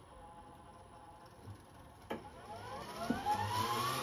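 A click about two seconds in, then the Arc Captain MIG 200's wire-feed motor starting up in a whine that rises steadily in pitch as it speeds up, feeding wire out through the MIG gun.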